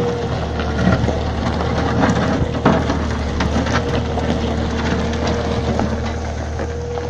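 Heavy diesel excavator engine running steadily, with a constant hum and a faint steady whine, broken by two sharp knocks about one second and nearly three seconds in.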